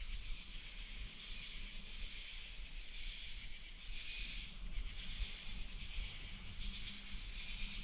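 Wind: a low rumble of gusts buffeting the microphone, under a steady hiss of wind through the woods that swells briefly about four seconds in and again near the end.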